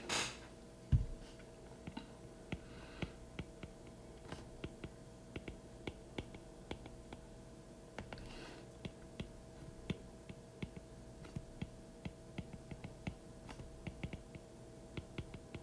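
Stylus tapping and clicking on a tablet's glass screen during handwriting: a scatter of faint, irregular clicks over a faint steady hum, with one low thump about a second in.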